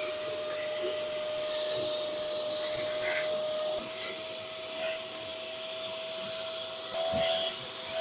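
Electric ash vacuum cleaner running with a steady whine and rushing hiss as its hose nozzle sucks ash and debris off a fireplace's brick floor. A brief louder rush comes near the end as more is drawn in.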